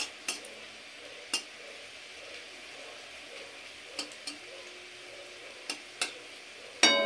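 Sliced garlic and dried red chillies frying in mustard oil in an aluminium kadai: a steady sizzle, with a few light clicks of a steel spatula against the pan as it stirs. Near the end, a loud metallic clang that rings on.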